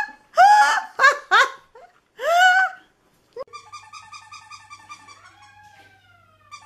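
Cat meowing four times in quick succession, short, loud calls that rise and fall in pitch, followed by a quieter, fluttering, warbling sound.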